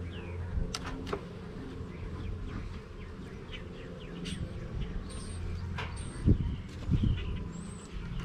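Honeybees buzzing steadily around an opened hive, with scattered clicks and a couple of louder low thumps about six and seven seconds in. Faint high chirps of birds are heard now and then.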